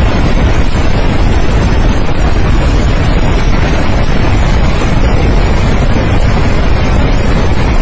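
Loud, steady rushing of floodwater, a swollen torrent after a glacier burst, with the most weight in the low end.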